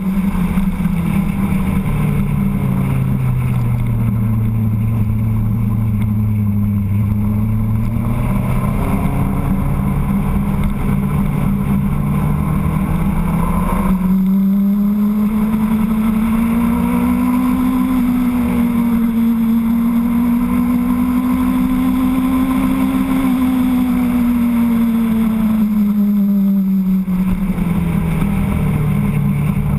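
Motorcycle engine running at road speed, its note rising and falling with the throttle: it drops about two seconds in, climbs back around eight seconds, rises again in the middle and falls off near the end. A steady rush of wind runs under it.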